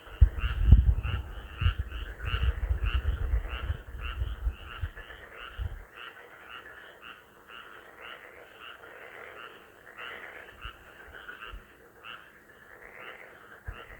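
A chorus of many frogs croaking in quick, overlapping calls without a break. A loud low rumble sits under it for the first six seconds, strongest about a second in, and comes back faintly near the end.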